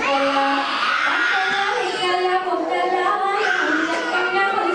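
A woman singing into a handheld microphone, holding long, steady notes.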